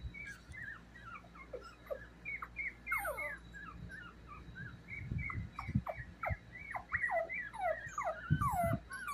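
Two-week-old Chihuahua puppy squeaking and whimpering: many short, high cries that fall in pitch, coming more often in the second half, with a few soft low bumps.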